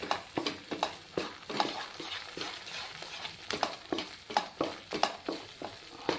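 Wooden spatula stirring and scraping thick Mysore pak mixture of gram flour, sugar and ghee round a nonstick kadai, in quick repeated strokes, with a light frying sizzle underneath. The mixture has thickened and is gathering away from the sides of the pan, nearly ready to pour.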